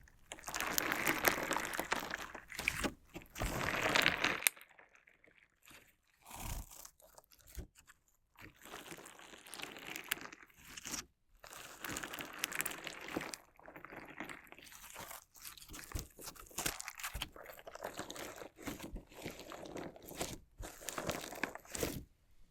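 Crunchy slime being worked close to a binaural microphone: a dense crackling crunch for the first four seconds or so, then quieter, broken crackles and sharp clicks.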